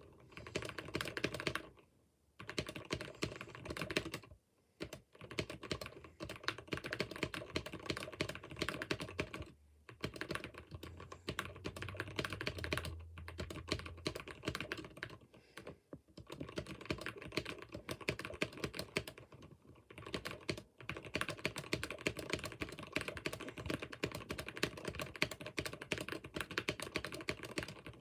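Computer keyboard being typed on fast: a dense, continuous stream of key clicks that stops briefly a few times.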